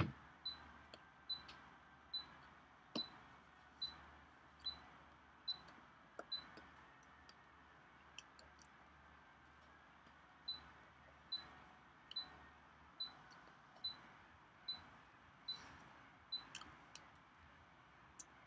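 A short, high-pitched electronic beep repeating evenly a little faster than once a second, pausing for about four seconds in the middle, over a faint low room hum.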